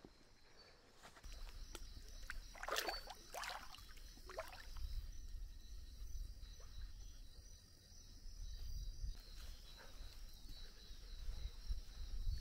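Steady high trilling of night insects, over the scuffs and low rumble of someone walking with a handheld camera. About two to four seconds in come three louder swishing steps on wet ground.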